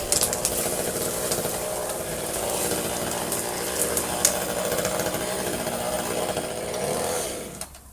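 Chainsaw running steadily at high speed, with sharp clicks over it, then winding down and stopping near the end.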